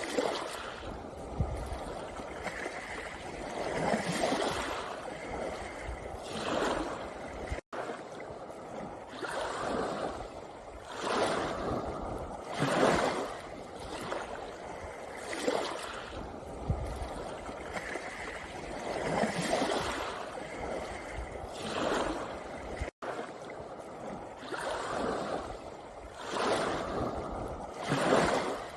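Small sea waves washing in and out over a pebble beach, a surge of wash every two to three seconds. The sound drops out for an instant twice.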